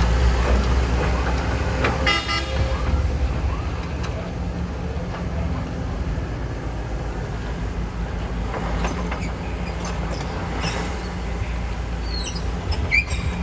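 Diesel engines of excavators and trucks running with a steady low rumble, and a short vehicle horn toot about two seconds in. A few faint high squeaks near the end.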